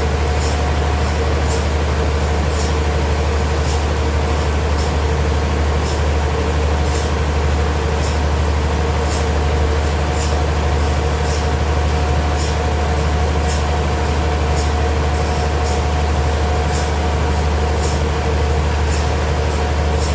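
Sawmill machinery running steadily: a loud, even low hum with two steady whining tones above it and light high ticks about once a second.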